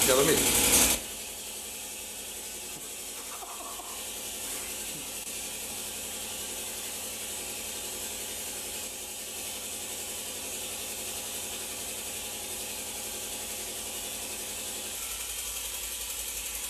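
Steady hiss with a faint mechanical whirring, after a louder stretch with a voice that cuts off suddenly about a second in.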